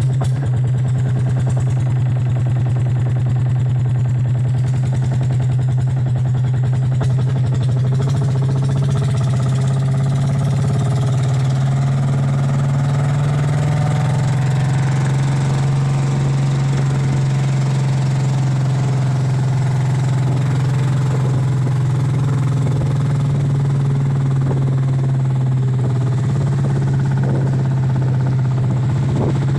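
Boat engine running steadily at a constant speed, with a strong low hum that holds one pitch.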